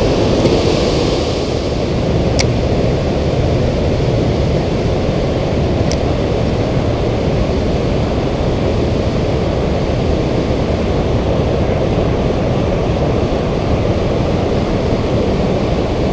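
Steady rushing of water pouring over a river spillway, a dense even roar. Two brief clicks cut through it, about two and six seconds in.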